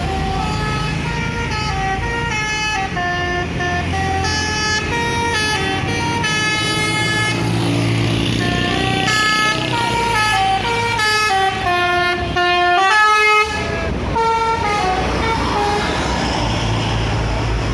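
Bus 'telolet' horn, a multi-tone musical air horn, playing a quick tune of stepped notes that stops about fifteen seconds in, over the low hum of the bus's running engine.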